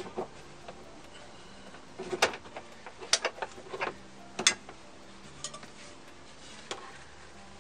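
Sharp metal clinks and clicks from a Willans racing harness's steel snap hook and buckle hardware knocking against an eye bolt and the car's floor pan as the belt is hooked on and handled. There are a handful of separate strikes, the loudest about two, three and four and a half seconds in.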